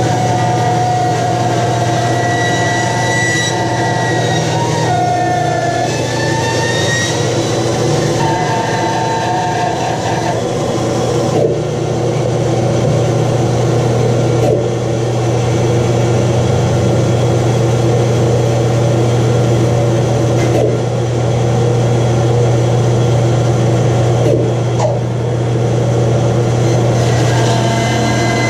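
Bandsaw running and cutting through a thick block of wood: a steady motor hum under the blade's cutting noise, with whining tones that shift in pitch during the first ten seconds as the wood is fed.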